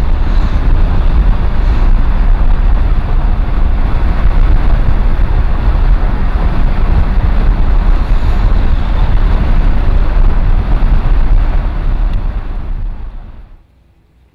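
Loud, steady road and wind noise inside the cabin of a moving car, heavy in the low rumble. It fades away a second or so before the end.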